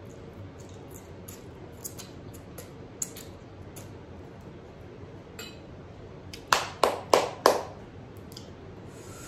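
Small scattered clicks of eating, then four sharp clinks of an eating utensil striking a dish in quick succession, each with a short ring.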